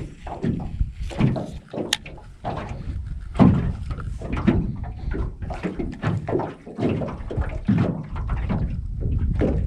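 Small waves slapping against a jon boat's hull in a string of irregular hollow knocks, over a deep rumble of wind on the microphone; one sharp click about two seconds in.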